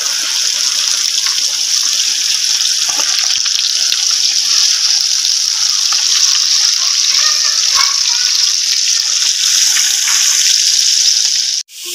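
Whole flour-coated chicken deep-frying in a wok of hot oil: a steady, loud sizzle with light crackles. It cuts off abruptly near the end.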